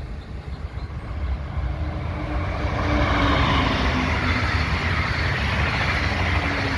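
A Brightline passenger train powered by a Siemens SC-44 Charger locomotive, its rumble and rush growing louder over the first three seconds as it closes in, then holding steady as it passes.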